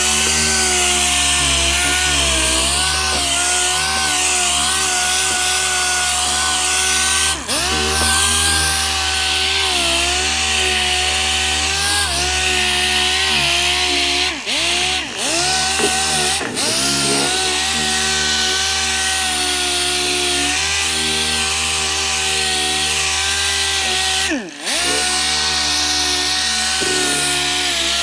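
Orbital sander running with 400-grit paper on a soft pad, sanding a car's fender body filler: a steady whine over a high hiss, the pitch sagging and recovering briefly a few times as it is pressed into the panel or eased off.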